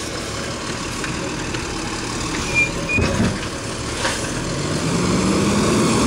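A garbage truck's engine running close by, with a knock about three seconds in. Near the end the engine revs up and its pitch rises steadily.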